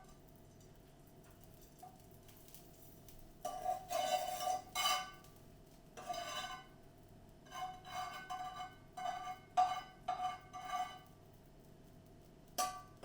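A spoon scraping and clinking against a container and a pan while ghee is scooped into the pan, in a few bursts of short scrapes with a slight ring, over a faint steady hum.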